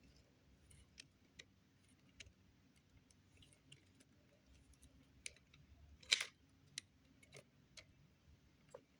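Faint, scattered clicks and ticks of a small screw being worked out of a plastic RC car part, with one louder click about six seconds in.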